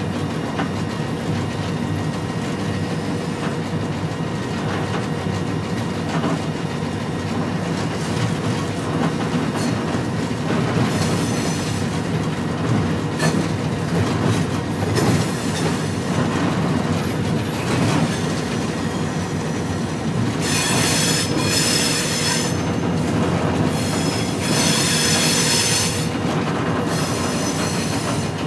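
Diesel locomotive heard from inside its cab while moving: a steady low engine and running rumble with wheels clacking over the rail, and repeated bursts of high-pitched steel wheel squeal, brief around 11 and 15 seconds in and stronger in several bursts in the last third.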